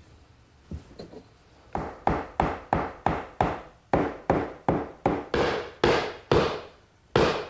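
Hammer driving ironwood pegs into the pinned mortise-and-tenon joints of a mesquite door frame. A few light taps about a second in, then a steady run of sharp wooden knocks, about three a second.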